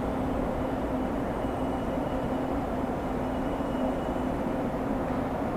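An EF210 electric locomotive hauling a container freight train as it approaches: a steady rumble with a low, even hum and a faint high whine.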